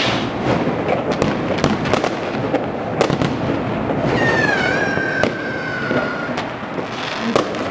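Many fireworks and firecrackers going off at once across a city: constant crackling with frequent sharp bangs, some near and some distant. A high whistle starts about four seconds in, dips slightly, then holds for some two seconds.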